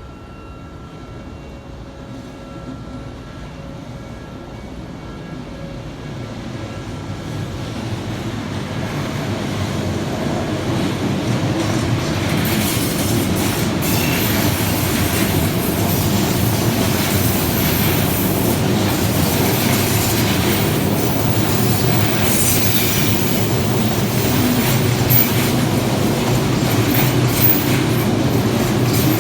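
Odakyu Line electric train approaching and running past, getting louder over the first ten seconds or so. It then holds a steady loud clatter of wheels over rail joints, with high wheel squeal.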